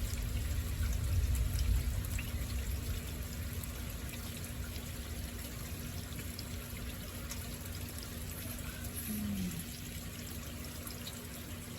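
Rain falling steadily in a thunderstorm, with water pouring and trickling. A low rumble of thunder is loudest during the first couple of seconds, then fades.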